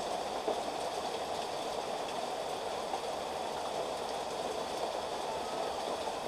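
Steady rain falling, an even, unbroken rushing noise.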